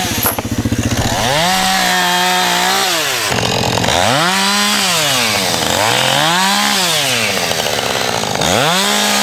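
Chainsaw cutting firewood: the two-stroke engine revs up, holds at full speed and drops back four times, each burst lasting one to two seconds.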